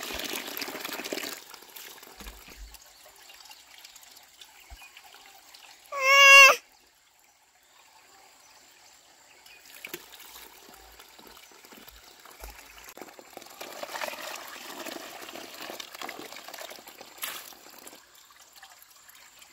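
Water poured from a small metal bowl into a basin of rice flour, splashing and trickling for about the first second and again more quietly later on. About six seconds in, a short, loud high-pitched call cuts in once.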